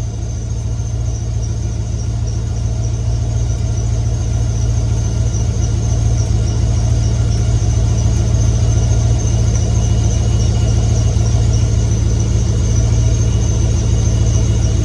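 A 6.0-litre LS V8 idling steadily, with a thin, high, continuous squeal from its drive belt over the engine note. The squeal is the belt that keeps bothering the owner.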